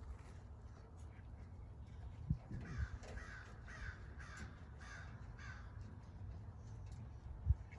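A crow cawing: a quick series of about six harsh calls, roughly two a second, in the middle of the stretch, over a low background rumble with a couple of brief low thumps.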